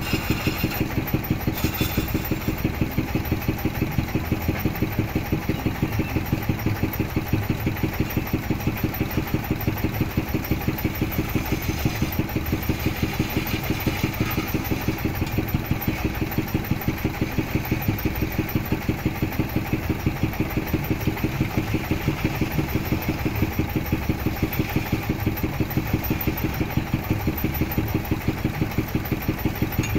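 Manual wood lathe turning a wooden vase blank, its drive running with a steady pulsing beat of about four a second, while a hand chisel cuts the spinning wood with a scraping hiss.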